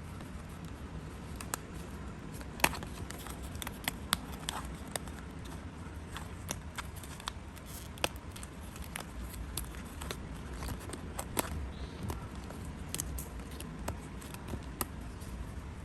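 Scattered sharp snips and clicks of paper being cut and handled by hand, over a steady low background hum.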